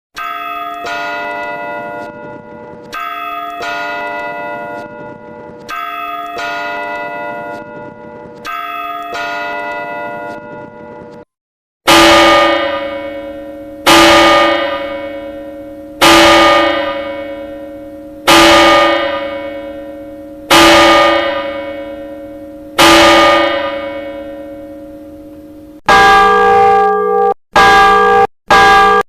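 Church bells of the Old Cathedral of Santa María in Vitoria. First comes a short pattern of several bells, repeated four times. After a brief gap, a single bell is struck six times about every two seconds, each stroke ringing out and fading. Near the end another bell rings, broken by abrupt cuts.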